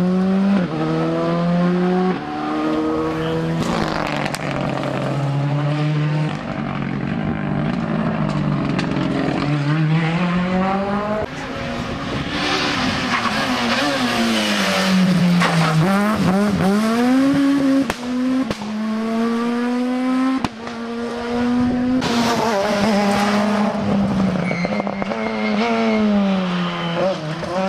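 Rally car engines at high revs, the pitch climbing and dropping back again and again as the cars shift up through the gears, with a swooping drop about halfway through as a car brakes and downshifts.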